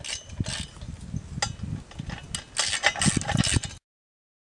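Metal-on-metal clinks and clicks of a wrench tightening nylon-insert lock nuts on the bolts under a steel target's cover, with a quick run of clicks in the second half. The sound cuts off suddenly near the end.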